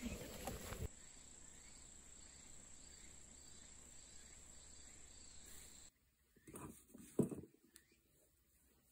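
Insects singing on one steady high note over faint outdoor noise. About six seconds in this gives way to soft rustles of hands handling damp perilla seeds and a cloth on a table, with one sharper knock among them.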